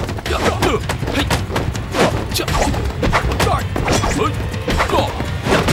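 Martial-arts fight sound effects: a rapid series of blows and impacts, with short shouts, over dramatic background music.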